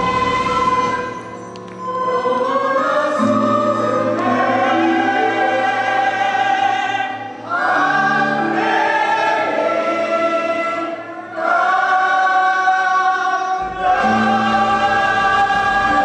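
Children's choir singing a song in long held phrases over instrumental accompaniment, with short breaks between phrases every few seconds.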